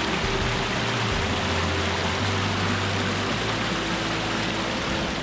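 Rushing creek water flowing over rocks, a loud, steady, even rush.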